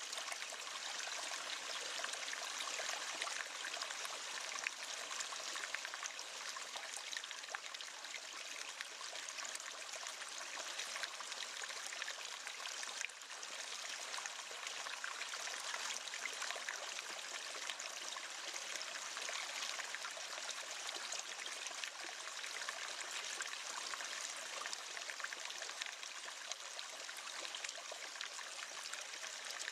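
River water flowing and splashing over stones in a steady, even rush, with a brief dip in level about 13 seconds in.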